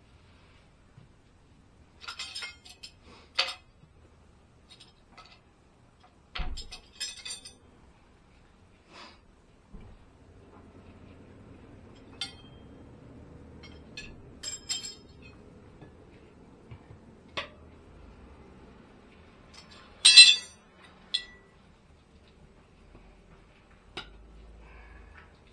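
Scattered metallic clinks and clanks of hand tools being handled, picked up and set down one at a time, the loudest about twenty seconds in. A faint steady hum sits underneath from about ten seconds in.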